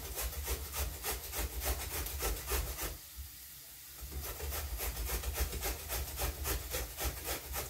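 Carrot being grated on a hand grater: quick, even rasping strokes, about five or six a second, with a pause of about a second near the middle.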